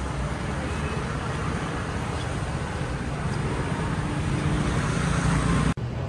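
Road traffic noise: a steady low rumble of passing vehicles, swelling a little toward the end and cutting off abruptly just before the end.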